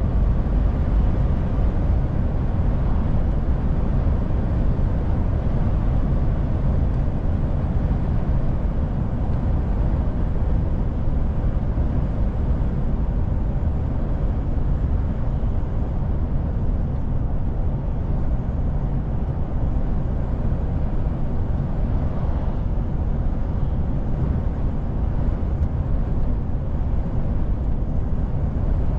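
DAF truck driving steadily: a constant low engine and road rumble with no change in pace.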